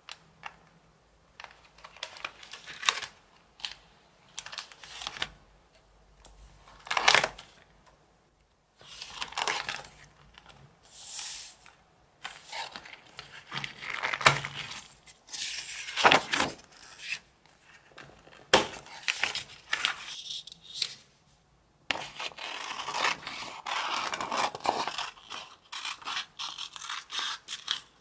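Paper and plastic sheets rustling and crinkling as they are handled in short bursts, with a few sharp clicks from a ring-bound planner's metal binder rings.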